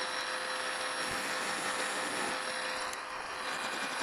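PM-1127 metal lathe running with the spindle turning steadily, giving a constant machine hum and whine.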